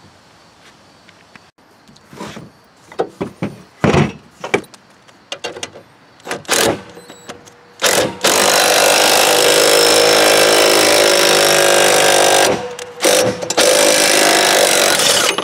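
Metal clinks and knocks as a two-jaw gear puller is fitted onto a mower's blade adapter. Then a power tool runs steadily for about four seconds, stops, and runs again briefly, turning the puller's forcing screw against a blade adapter rusted and frozen onto the crankshaft.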